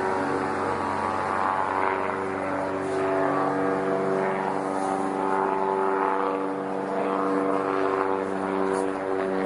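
Light propeller plane's piston engine droning steadily, its pitch wavering slightly.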